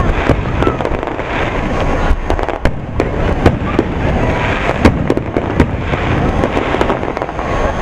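Aerial firework shells bursting overhead, with many sharp cracks and dense runs of crackling from the glittering stars.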